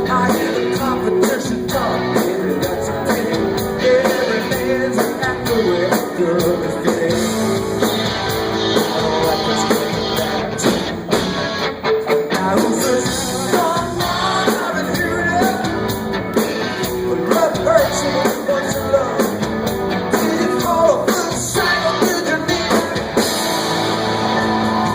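Rock music with singing, played continuously at a steady, loud level.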